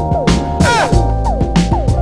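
Background music with a steady beat: electronic drums, a deep bass and sustained synth notes with falling pitch slides.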